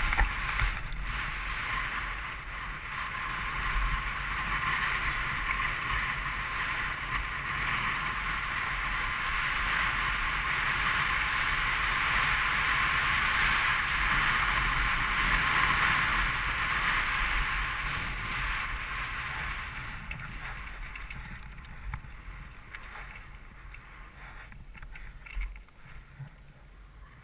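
Wind rushing over a helmet camera's microphone as a mountain bike rolls downhill over a rocky dirt trail, with the bike rattling along. The rush builds toward the middle, eases after about twenty seconds, and a few sharp knocks come near the end.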